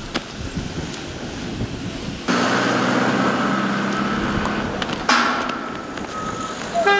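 A van's engine running as it drives past, over outdoor noise. A sudden sharp noise comes about five seconds in.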